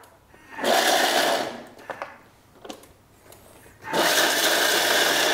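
Countertop kitchen mixer's blade spinning up to chop pumpernickel bread into crumbs, in two bursts: a short one of about a second, then a longer one starting about four seconds in.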